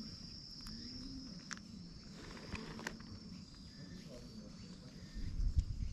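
Steady high-pitched insect drone with a few light clicks. About five seconds in, louder low rustling and knocks begin.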